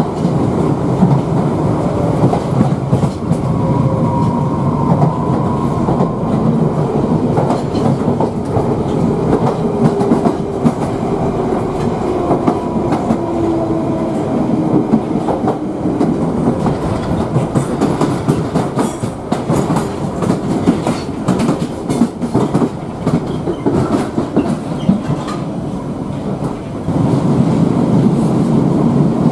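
Piccadilly line 1973 Stock Underground train running at speed, heard from inside the carriage: a loud steady rumble of wheels on rail with clickety-clack over the rail joints. A whine falls slowly in pitch through the first half, and the noise gets louder near the end.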